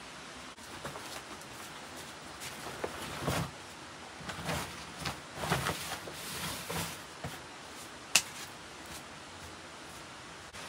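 A run of irregular scrapes and knocks from hands-on work over a steady hiss, with one sharp click about eight seconds in.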